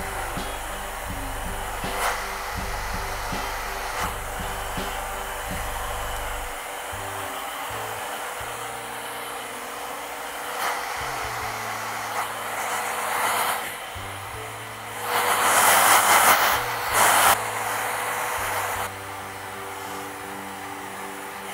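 Hand-held hair dryer blowing steadily while drying hair, getting louder in surges about fifteen to seventeen seconds in. Background music underneath.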